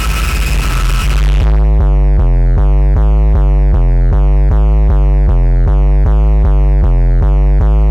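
A loud rushing noise gives way, about a second and a half in, to a low, harsh electronic buzz. The buzz switches back and forth between two pitches about three times a second, like a two-tone alarm buzzer.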